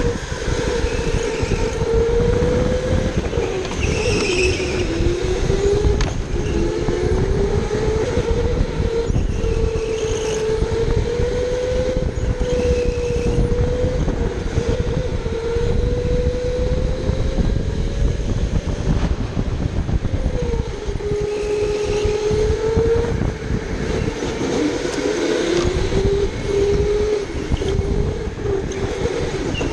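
Electric go-kart motor whining, its pitch rising and falling as the kart speeds up and slows through the corners, over a steady low rumble.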